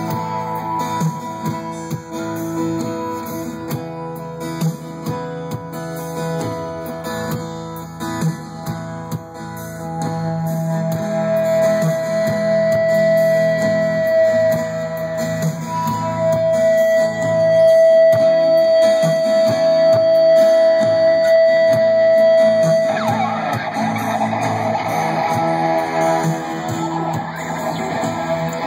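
Acoustic-electric guitar strumming chords with an electric guitar playing lead over it, an instrumental jam. The lead holds long sustained notes through the middle, then breaks into a quick flurry of notes near the end.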